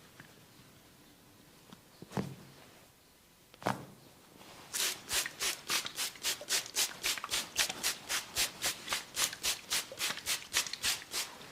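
Hand massage strokes: two single knocks, then hands rubbing briskly in a steady rhythm of about four strokes a second for several seconds.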